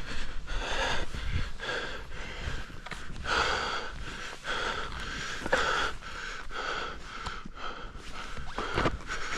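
A skier's heavy, rapid breathing close to the microphone, about two breaths a second, while skiing through powder.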